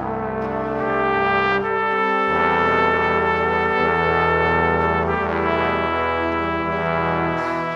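Background instrumental music, brass-toned, playing held chords that change every couple of seconds.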